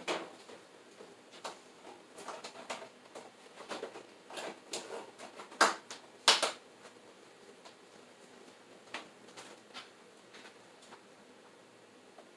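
Scattered light knocks and clicks of kitchen containers being handled at a pantry shelf, with two louder knocks a little past halfway through. It thins to a few faint taps later on.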